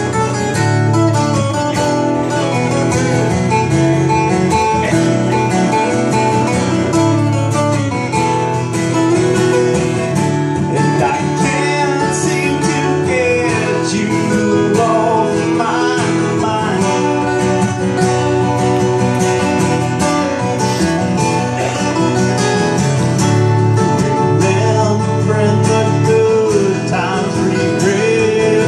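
Two acoustic guitars strummed in a steady rhythm while a man sings, played live.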